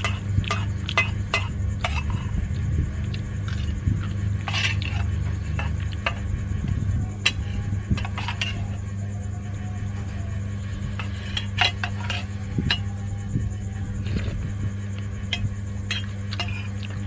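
Spoon clinking and scraping against a bowl during eating, many short irregular clinks, over a steady low hum.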